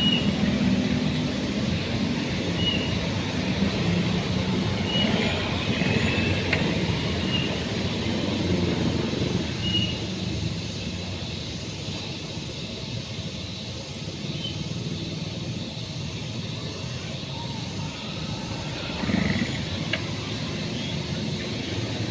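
An engine running steadily, a little quieter in the second half, with a brief louder surge about nineteen seconds in.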